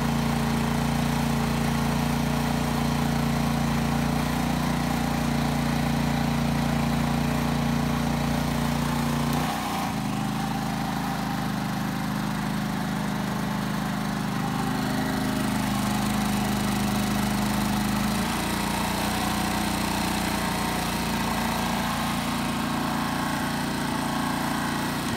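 Generac GP3500 inverter generator engine running steadily under load. Its engine note drops abruptly about a third of the way in and changes again past the middle, as the inverter throttles down while the space-heater load is taken off.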